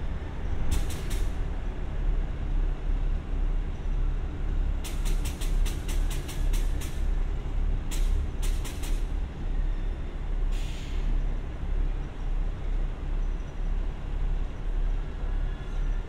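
KiHa 52 diesel railcar standing at a platform with its diesel engine idling, a steady low hum. Short runs of rapid high-pitched clicks come several times over the idle.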